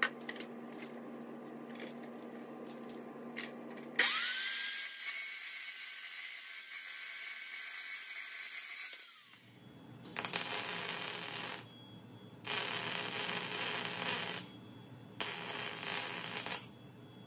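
A metal-cutting chop saw spins up with a rising whine, cuts through angle iron for about five seconds, then winds down. After a pause, a wire-feed welder crackles in three short bursts as it welds the angle-iron frame joints. Before the cut there are only light handling clicks over a low hum.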